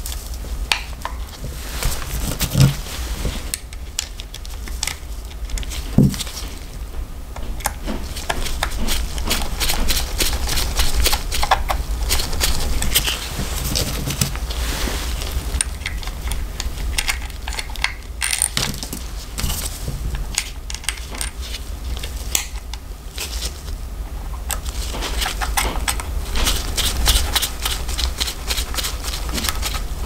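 Small metal clicks and clinks of a vintage Wahl barber clipper's blades and screws being handled and fitted onto its head, with two sharper knocks in the first few seconds. A steady low rumble runs underneath.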